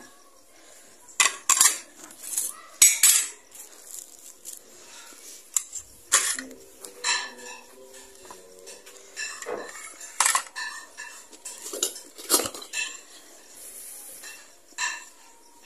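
Plates, glass bowls and spoons clinking and knocking together as they are gathered up, in irregular clinks spread through the whole stretch.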